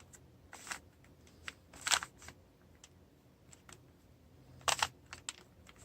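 Stickerless Rubik's Cube being twisted by hand: its plastic layers click and clack as they turn, in a few irregular bursts, the loudest about two seconds in and again near the end.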